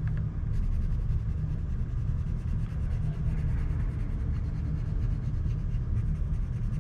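Colored pencil scratching on paper as a wedge is outlined and shaded in, over a steady low rumble.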